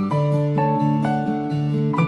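Background music: a plucked-string melody of quick notes over sustained bass notes.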